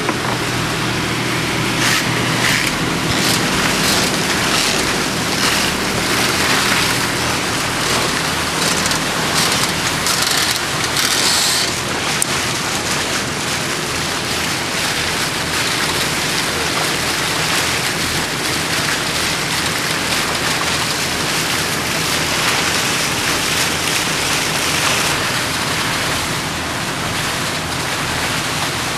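Steady rush of water and wind as a sailing catamaran moves across open water, surging louder several times in the first half.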